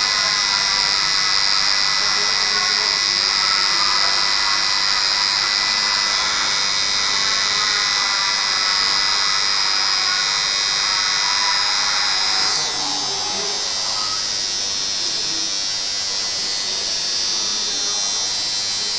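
Coil tattoo machine buzzing steadily as the needle works into the skin. Its buzz drops a little in level and changes tone about two-thirds of the way through.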